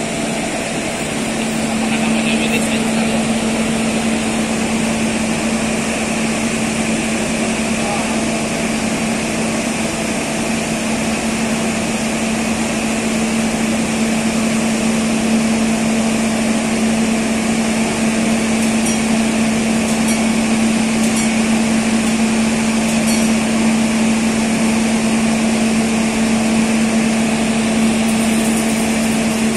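Diesel engine of a stationary passenger train running steadily at idle: a constant drone with a steady low hum and a hiss above it.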